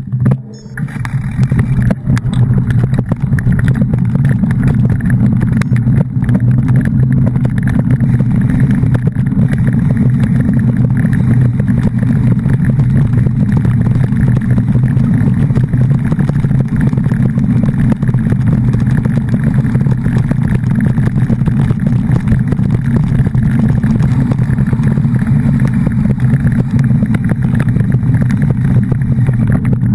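A motor vehicle running steadily with a loud low rumble, coming in suddenly at the start and holding an even level throughout.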